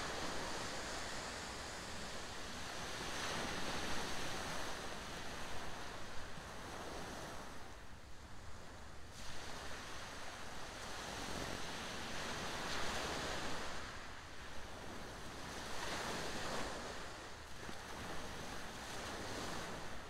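Waves breaking on a shingle beach, the surf swelling and easing every few seconds.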